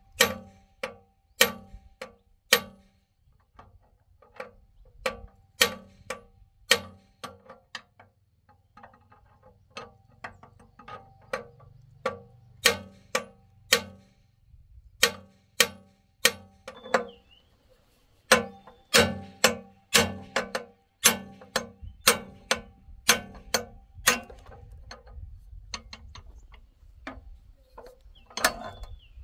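Hammer blows on metal: sharp, ringing strikes about one to two a second, in runs broken by short pauses, with a lighter patch of taps near the end.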